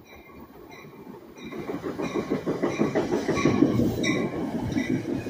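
NJ Transit train running in alongside the platform: steel wheels clattering on the rails, swelling sharply about a second and a half in as the cars come past. A high ringing repeats about twice a second.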